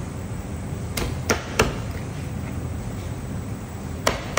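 Knife chopping through raw chicken pieces: three sharp chops in quick succession about a second in, then a fourth near the end.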